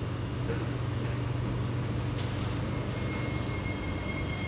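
Interior of a C751B metro train as it pulls away from a station: a steady low hum, a click about two seconds in, then the high, steady electric whine of the traction motors coming in about three seconds in as the train starts to move.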